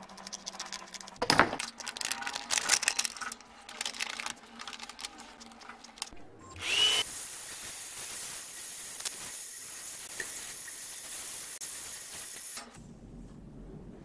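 Thin plastic heat-shrink film crinkling and being cut with scissors, with clicks and rustles, then a hair dryer switched on about six and a half seconds in. The dryer blows with a steady hiss to shrink the tube and cuts off abruptly near the end.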